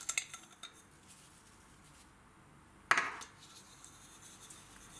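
Quiet handling sounds of sugar and coarse salt being sprinkled by hand over shredded cabbage on a tabletop, with faint light ticks and one short, sharp clink about three seconds in.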